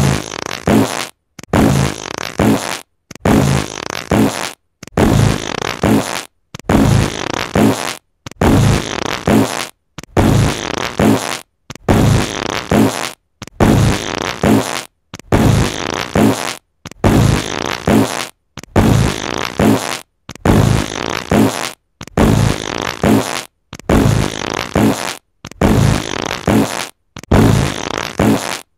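Fart sound effect repeated over and over at an even pace: about one low, sputtering blast every second and a half to two seconds, each cut off by a brief moment of silence.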